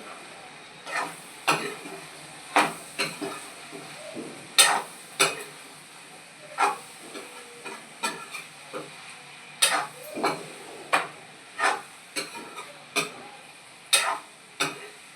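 A spoon stirring beans and potatoes frying in a pan: sharp scrapes and knocks against the pan about once a second, unevenly spaced, over a faint sizzle.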